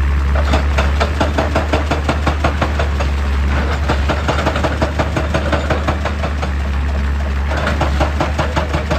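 Heavy excavator's diesel engine running, with a rapid, rhythmic hammering of rock-breaking work over it that weakens for a while in the middle and picks up again near the end.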